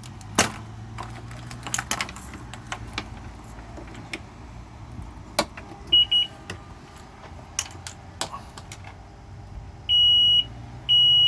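Scattered clicks and taps over a faint low hum, with no engine running yet. A short high-pitched electronic beep comes about six seconds in, and near the end a series of loud, evenly spaced high beeps, each about half a second long.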